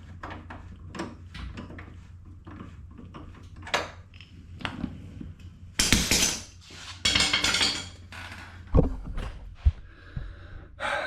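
Metal tools and bolts clinking and knocking while K-member bolts are worked into place under a car: scattered sharp clicks, with two louder scraping bursts about six and seven seconds in and a couple of hard knocks near the end.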